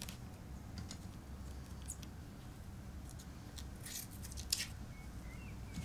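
Scattered soft clicks and snips of small hand tools being handled and used at a workbench, over a steady low room hum. A faint short squeak comes near the end.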